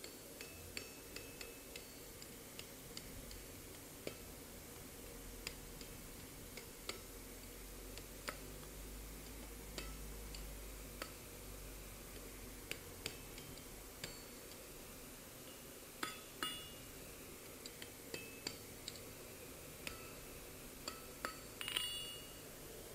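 Light hammer taps on a hot mild-steel spiral on the anvil, irregular and about a second apart, each with a short metallic ring. A quick run of louder ringing strikes comes near the end.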